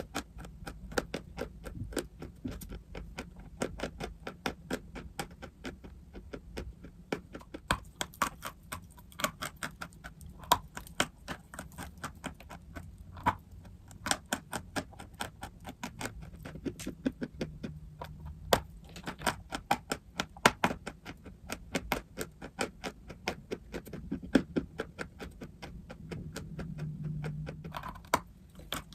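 Close-up crunching of dry chalk and clay: a rapid, irregular run of crisp cracks and crackles, several a second, with some louder snaps.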